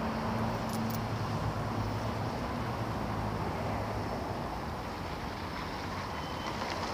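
Road traffic noise: a steady rush of passing cars, with a heavy vehicle's low engine hum that fades out about four seconds in.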